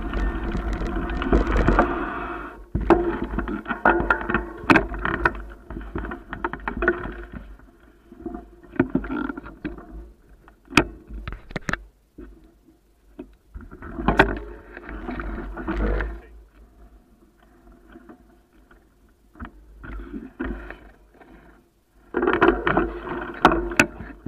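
Mountain bike rattling and knocking over a rough dirt track, the noise picked up on a bike-mounted camera. It comes in bursts with quieter pauses between them, the loudest near the start and the end.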